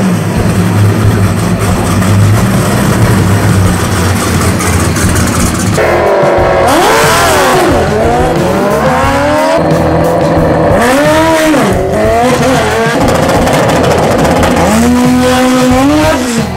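Drag car engine running with a steady low rumble, then from about six seconds in revving up and down in several big swells.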